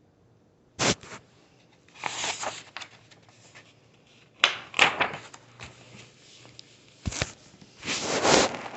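Paper rustling as a picture book's pages are handled and turned, in about five short bursts.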